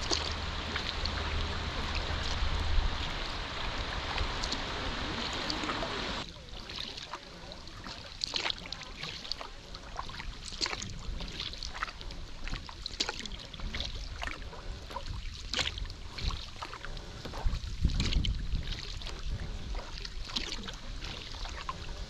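Kayak paddle strokes in calm river water: a steady rushing hiss for about six seconds, then, after a sudden change, irregular light splashes and drips from the paddle blades.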